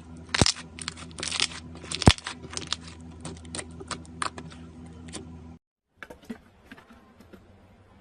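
Slime being squeezed and pressed by hand, giving irregular sharp clicks and crackles, with two loud snaps about half a second and two seconds in, over a steady low hum. After a brief dead silence near six seconds, fainter and sparser crackling of slime follows.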